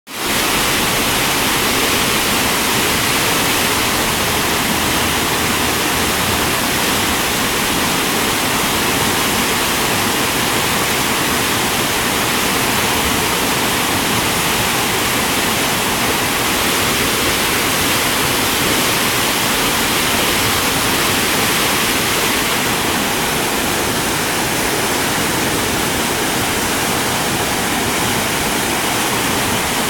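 Skykomish River white-water rapids rushing over rocks: a loud, steady rush of water that holds even throughout.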